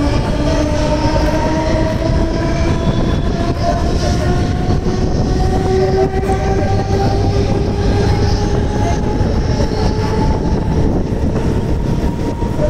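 Mumbai suburban electric local train accelerating away from a station: the traction motors' whine rises steadily in pitch over the loud rumble of wheels on rail, heard from the open doorway.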